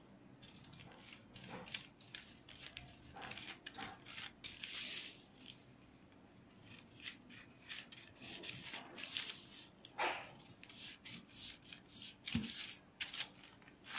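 Scissors cutting through folded newspaper: a run of irregular snips as the blades work along a marked pattern line, with a few longer rustling passes of the paper.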